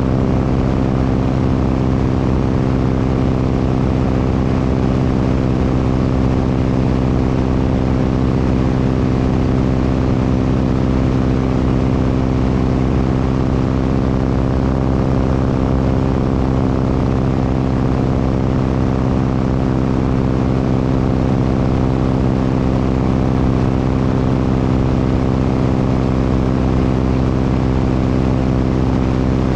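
Light propeller airplane's engine and propeller running steadily in flight at an even pitch, with wind rushing over the microphone.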